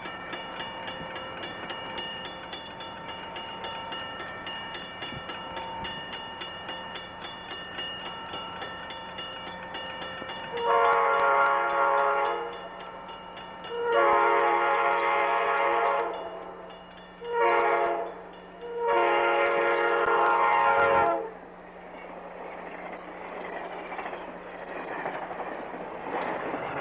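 Grade-crossing warning bell ringing steadily, then an approaching Amtrak Pacific Surfliner train sounds its K5LA horn in the standard crossing signal: long, long, short, long, starting about ten seconds in. The train's rushing rumble then grows as it reaches the crossing near the end.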